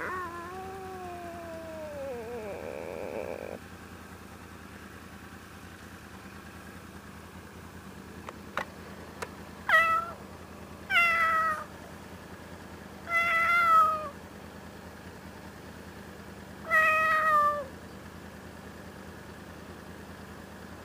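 Meowing: one long meow falling in pitch at the start, then four shorter meows spread over the following eight seconds, beginning about ten seconds in. A motorcycle engine idles steadily underneath.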